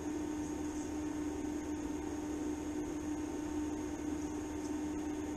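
TIG welding arc held steadily on thin steel, fusing two pieces without filler wire: a constant electric hum with a hiss over it, unbroken throughout.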